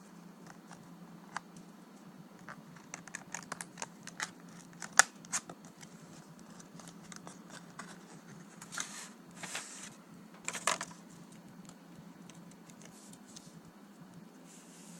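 Packaging of a software retail box being opened and its contents handled: a string of sharp clicks and taps, the loudest about five seconds in, then short rustles of packaging near the end.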